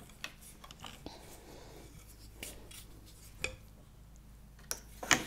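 Hand-working of a wooden rigid heddle loom: soft rustling of yarn and a scattering of light wooden clicks and taps as heddles are shifted and the tabby weft is handled. A sharper knock comes near the end.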